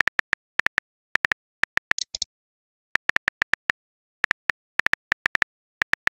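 Phone keyboard typing sound effect: short, identical clicks in quick runs of a few at a time, with pauses between words. A couple of softer, hissier clicks come about two seconds in.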